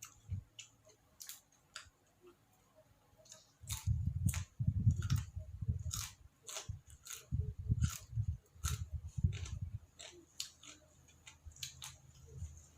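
A person chewing food close to the microphone: sharp crunchy clicks and mouth sounds, sparse at first, then steady chewing from about three and a half seconds in.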